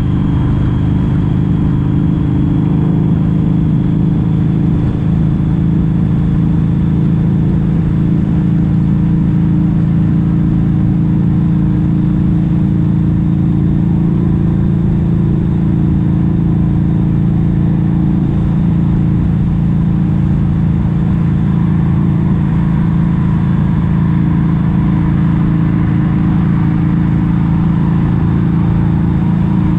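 Harley-Davidson V-Rod Muscle's 1250 cc Revolution V-twin running at a steady, nearly constant engine speed while riding. The exhaust is Vance & Hines Competition Series slip-ons with the catalytic converters removed.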